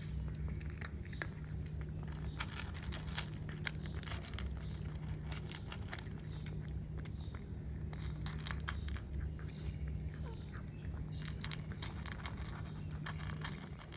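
A cat eating up close, with many irregular crunchy clicks of chewing and biting, over a steady low hum.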